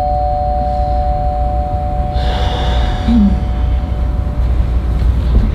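Two-note doorbell chime, the second note lower, ringing on and fading out about five seconds in, over a steady low rumble.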